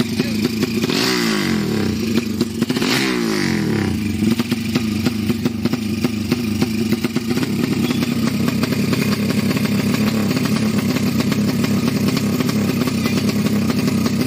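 Drag-racing motorcycle engine running while the bike stands still, blipped twice in the first few seconds with the revs falling back each time, then idling steadily with a rapid clattering beat.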